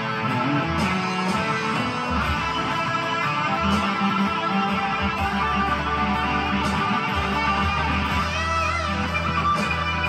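Squier Toronado electric guitar with humbucker pickups, played through a Blackstar amp with distortion, reverb and delay, improvising a blues line on the E minor pentatonic scale. There is a bent, wavering high note near the end.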